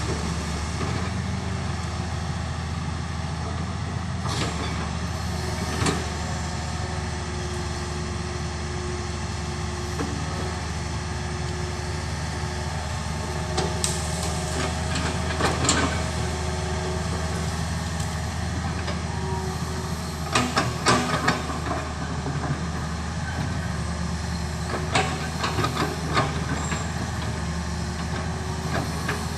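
A heavy vehicle's engine running steadily, with scattered knocks and clanks over it.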